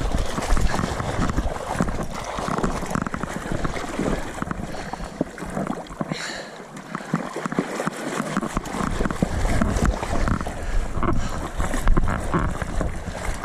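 River water sloshing and splashing around an angler's legs as he wades through the current, with irregular splashes throughout. Wind buffets the microphone in low gusts that drop out for a couple of seconds midway.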